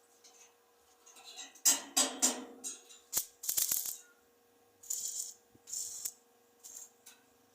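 A series of short rattles and clinks in irregular bursts, with sharp clicks in between.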